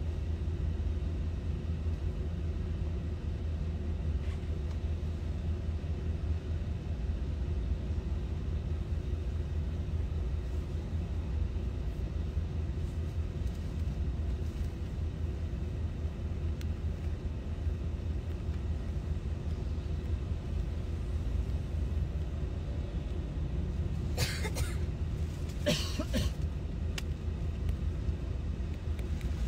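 Steady low rumble of a moving car, heard inside its cabin, with two short sounds near the end.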